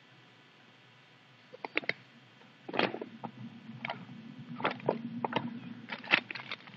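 Scattered clicks and short rustles of small accessories and their packaging being handled, starting about a second and a half in, over a faint low hum.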